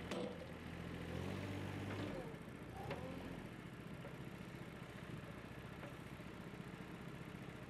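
An engine running at idle, a low steady throb with a quick even pulse.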